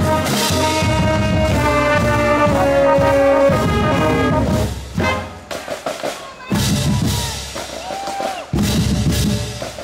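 Marching band with tubas, horns and saxophones playing sustained brass chords that stop about halfway through. After that, drums play on alone in a broken cadence.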